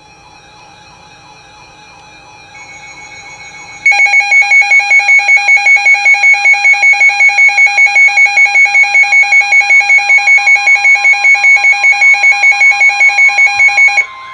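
Weather radio alert alarm going off for a Severe Thunderstorm Warning. It starts softly and steps up in volume, then about four seconds in becomes a very loud, shrill beeping that pulses about five times a second for roughly ten seconds, and cuts off just before the end.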